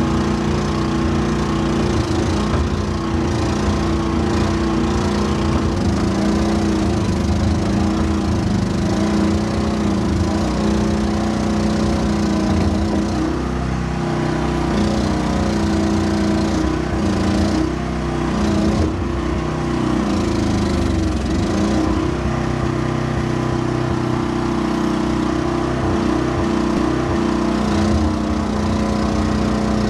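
Small excavator's engine running steadily as the machine tracks along, its pitch wavering for a few seconds in the middle.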